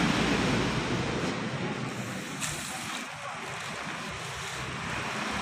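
Rushing noise of a road vehicle passing and fading away, with a single knock about two and a half seconds in.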